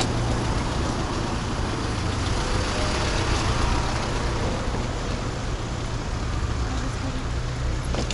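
Steady outdoor road noise with wind buffeting the microphone and traffic running by, heard from a moving bicycle.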